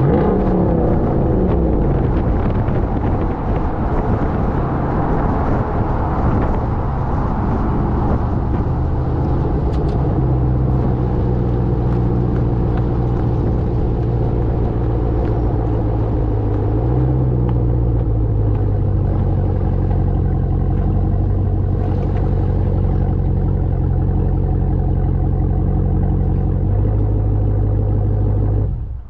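Ram TRX's supercharged 6.2-litre V8 exhaust while the truck drives along. The engine note falls for the first couple of seconds, then holds a steady drone with small rises and falls and a step change in pitch near the end.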